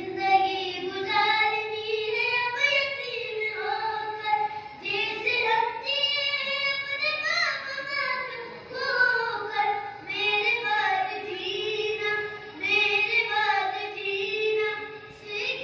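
A boy's solo, unaccompanied sung recitation of a Muharram lament (noha), read from a book into a microphone, in long held melodic phrases with short breaths between them.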